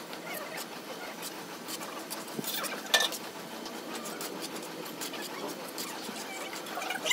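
Steel hand trowel scraping and spreading cement mortar on a concrete column, with light scrapes and clicks of the blade and one sharper tap about three seconds in.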